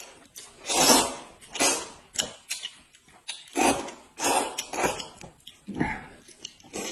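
Noodles slurped up with chopsticks from a bowl of soup: several short, loud slurps, the loudest about a second in.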